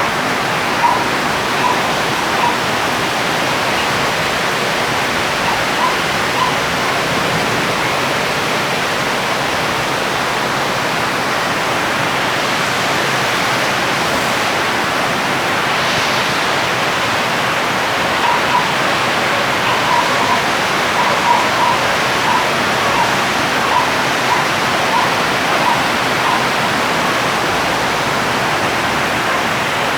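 Steady heavy rain, a dense even hiss, with short light ticks now and then, most of them in the second half.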